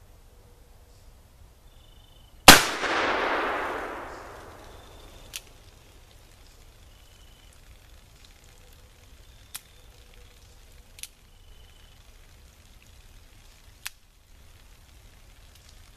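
A single shot from a .44 cap-and-ball black powder revolver, a Pietta reproduction of the Colt 1851 Navy, about two and a half seconds in, its report echoing away over the next two seconds. Four faint sharp clicks follow, spread over the next ten seconds.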